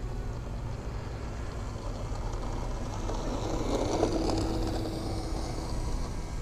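Electric motor and propeller of a foam RC model F-16 jet taxiing on the runway at low power during a ground test: a thin whine with a hiss that swells about three seconds in and eases near the end, over a steady low rumble.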